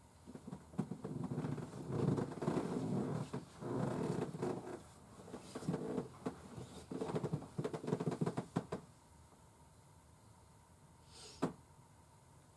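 Bedding rustling and shuffling in uneven bursts as a person sits up and moves in bed, followed about eleven seconds in by a single sharp click.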